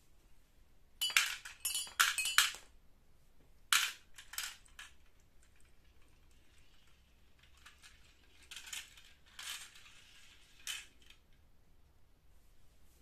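Glass marbles clinking and clattering as they drop off a toy xylophone ramp into a small toy dump truck's bed: a quick cluster of hits about a second in and a few more around four seconds. Softer marble rattles follow near the end as the loaded truck is moved.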